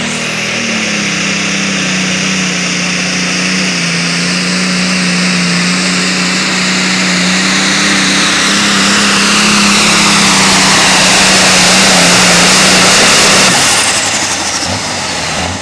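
Turbocharged diesel engine of a Light Limited Super Stock pulling tractor held at full throttle under load, its note steady with a high turbo whine over it and growing louder. Near the end the engine backs off and the turbo whine falls away as the pull ends.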